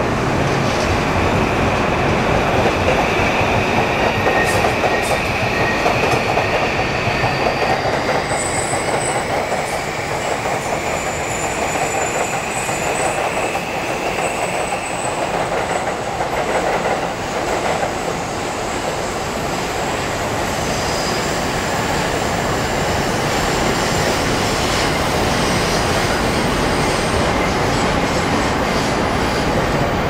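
JR East E235 series electric train running past, its Mitsubishi full-SiC VVVF inverter giving a high whine over the wheel and rail noise. The whine holds steady at first, then rises in pitch from about eight seconds in as the train picks up speed.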